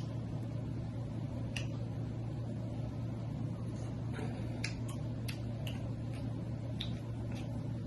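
A steady low hum with scattered small clicks and smacks of eating, several close together about halfway through.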